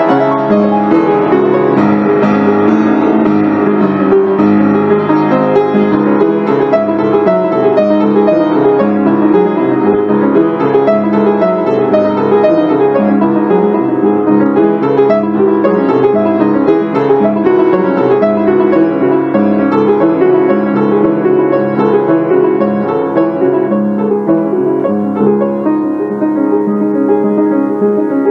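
Background piano music, many notes played in quick succession.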